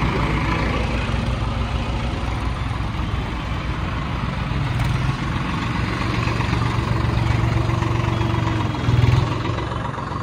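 Diesel tractor engine running steadily with a low even pulse, with a brief louder burst near the end.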